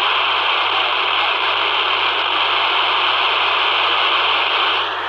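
Steady FM hiss from a handheld radio's speaker, its squelch open on a weak satellite downlink from AO91 as the satellite is being lost. The hiss drops in level near the end.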